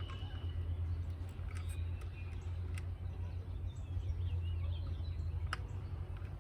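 Steady low rumble with faint bird chirps and a few sharp clicks, the loudest click about five and a half seconds in.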